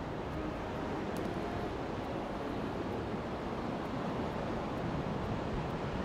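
Surf washing onto a sandy beach: a steady rush of small breaking waves.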